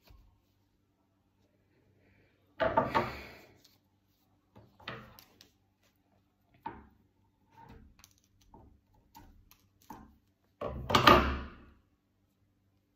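Handling noises as an epaulette is worked on at a table: two louder scraping rustles, about 3 and 11 seconds in, with light clicks and rustles between.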